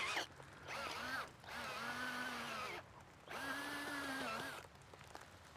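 Handheld power drill boring into garden soil to make a deep planting hole: three runs of about a second each, the motor's pitch rising and falling in each.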